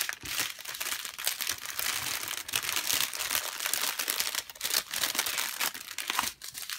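Plastic packaging of a diamond painting kit being handled, crinkling and crackling without a break.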